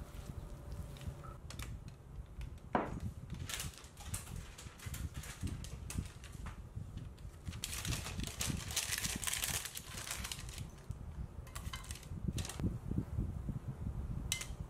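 Parchment paper crinkling as it is pressed and folded into a ceramic loaf pan, loudest about halfway through, with scattered sharp clicks and knocks of handling before and after.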